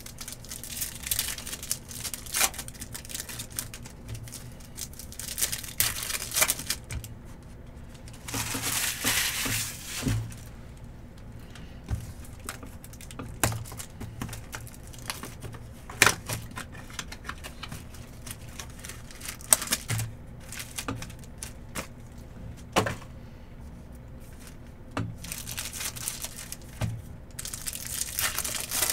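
Foil trading-card pack wrappers crinkling and tearing as packs are ripped open, with scattered sharp clicks of cards being handled.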